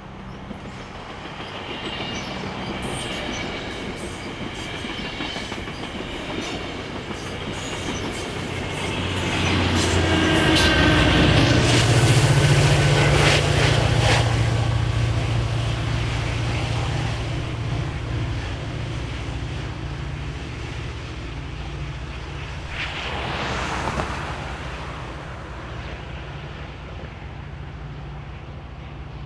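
Diesel passenger train passing: a low, steady locomotive engine note swells to its loudest about twelve seconds in and then fades away. Wheels click over the rail joints as the train goes by, with a high wheel squeal in the first several seconds.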